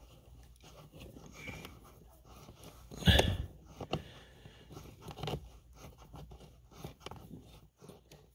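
Hands and a screwdriver fumbling a screw into a car's blower motor resistor in a tight space behind the dash: faint scraping and small clicks on plastic, with one sharp knock about three seconds in.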